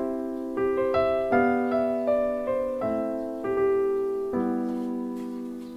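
Background music: a piano playing a gentle melody over chords, the notes struck about every half second and fading away between strikes.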